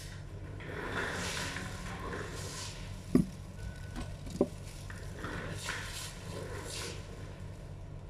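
Rustling and handling sounds from a haircut, with the stylist working the hair under a plastic cape, several short rustles and two sharp knocks near the middle, over a steady low hum.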